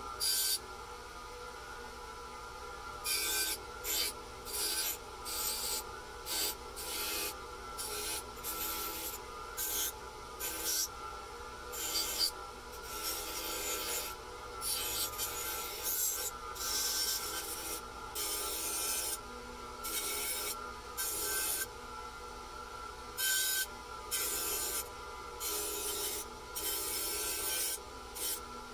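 Repeated hand strokes of abrasive rubbing on a part of a Stanley No. 8 jointer plane, one scrape every half-second to second, with short pauses between runs of strokes.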